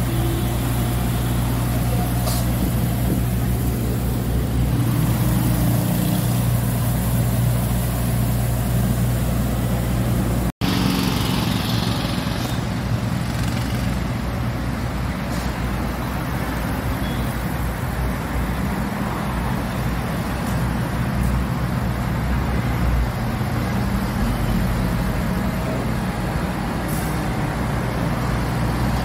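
Roots RD 180 ride-on power sweeper running, its engine a steady, even hum as it sweeps along the kerb, with street traffic behind it. The audio cuts out for an instant about ten seconds in.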